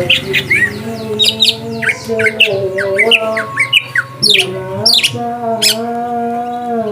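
Green leafbirds giving quick, sharp chirps and calls over and over, over a song with a held sung vocal line playing underneath.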